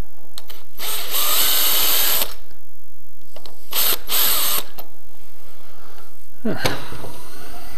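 Masterforce 18V cordless drill with a countersink bit cutting into the end of a drilled and tapped steel rod: one run of about a second and a half, then two short bursts around four seconds in.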